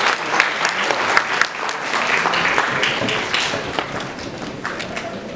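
Audience applause, slowly dying down.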